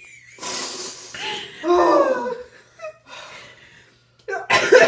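Women's pained laughter and gasps as a black peel-off face mask is torn from the skin and hair: a sharp hissing breath, then a falling cry, and a loud burst of laughter near the end.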